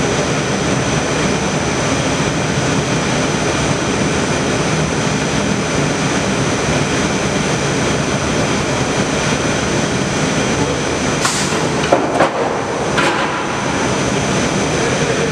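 Wooden-board conveyor and transfer machinery on a glulam beam line running with a steady mechanical noise. Near the end, a few sharp knocks come as boards are moved onto the transfer arm.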